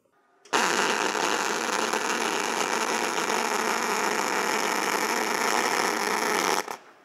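Solid-wire MIG (GMAW) welding arc on galvanized steel: a steady hiss that starts about half a second in and stops suddenly after about six seconds. The zinc coating is too much for the MIG wire's scavengers, and the bead comes out porous.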